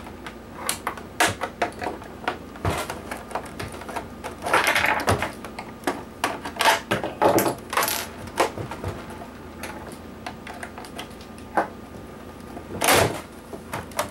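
Plastic clips of a PlayStation 3's top casing clicking and snapping as the cover is pried off, with scraping and rattling of the plastic shell in between. One loud snap near the end.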